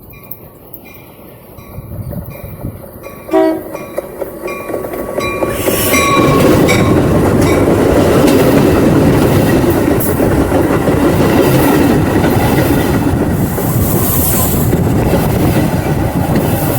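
A train horn gives one short blast about three seconds in. Then a train passes very close by, its wheels rumbling and clattering over the rails, loud and steady until the end.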